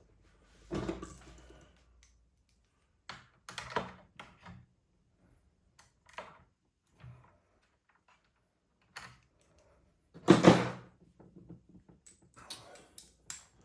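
Hand tools and metal parts knocking and clicking against the charger's casing during a teardown, in scattered short strokes, with a louder clatter about ten seconds in.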